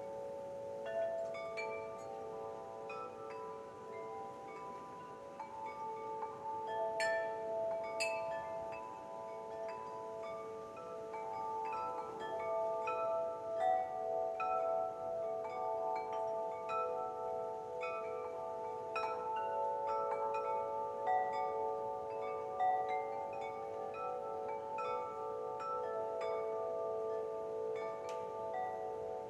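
Wind chimes ringing gently, their tubes struck at random so that several sustained, overlapping tones ring on at once.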